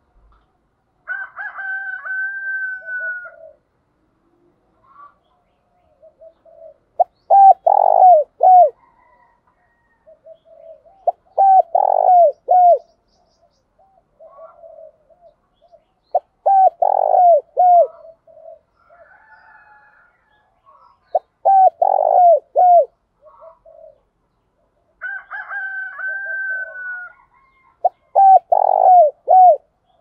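Spotted dove cooing: five phrases, each a quick run of three or four deep coos, a few seconds apart. Twice, about a second in and near the end, a longer steady higher note is held for about two seconds.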